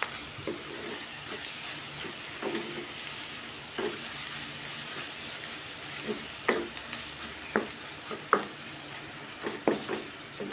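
Minced meat with onion and tomato sizzling in an aluminium wok while a wooden spatula stirs it. Sharp knocks and scrapes of the spatula against the pan come now and then, most of them in the second half.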